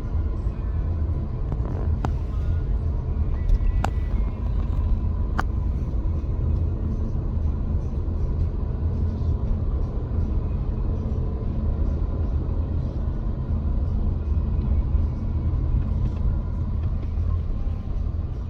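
Steady low rumble of a car driving, road and engine noise heard from inside the cabin, with a few sharp clicks in the first several seconds.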